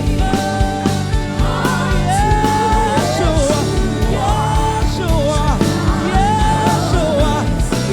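Gospel worship band music: drums keeping a steady beat under held, sliding lead notes, with singing.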